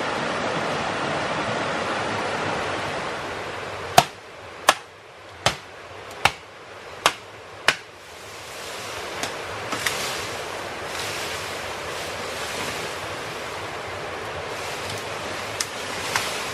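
Steady rush of running water, with six sharp knocks starting about four seconds in, roughly one every three-quarters of a second, followed by a few faint clicks.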